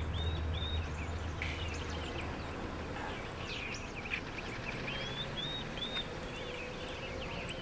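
Small birds chirping and calling in many short, quick notes over a steady background hum of street traffic. A low rumble underneath fades out about three seconds in.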